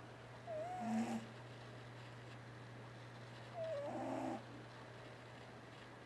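Domestic cat snoring in its sleep: two snores about three seconds apart, each a wavering note that runs into a rougher, noisier sound.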